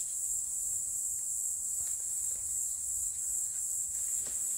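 Steady high-pitched insect chorus from the forest, like a field of crickets, with a few faint clicks.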